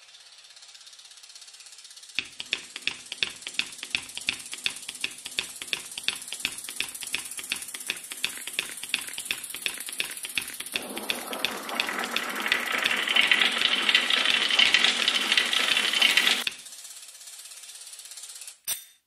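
Steady mechanical ticking, about three sharp ticks a second, joined about two-thirds of the way through by a rising rush of noise that builds in loudness. Both cut off suddenly, and a single click follows near the end.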